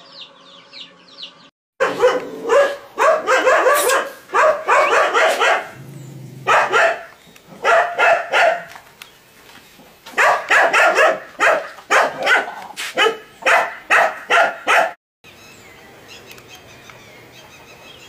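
Dog barking loudly and repeatedly in short clusters for about thirteen seconds, starting after a few soft chick peeps and cutting off suddenly, followed by faint background with a few bird chirps.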